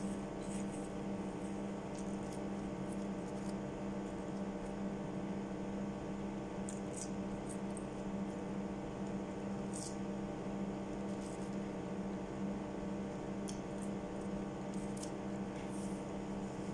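Steady electrical hum, with a dozen or so brief soft clicks and smacks from chewing food scattered through it.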